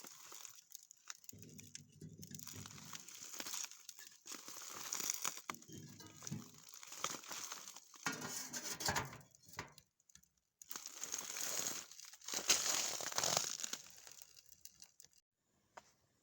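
Irregular crinkling and crunching handling noises in stretches of a few seconds, with brief breaks between them, stopping abruptly near the end.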